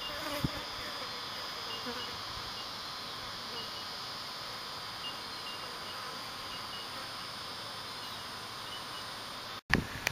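Steady high-pitched insect chorus with short chirps repeating at irregular intervals. The sound breaks off for an instant near the end.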